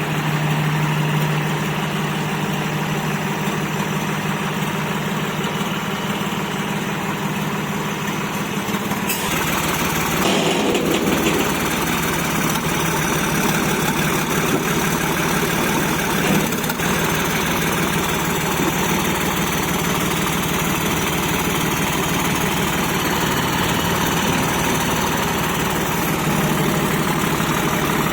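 Massey Ferguson 9500 tractor's diesel engine running steadily, with the backhoe and loader mounted; its sound changes about nine seconds in.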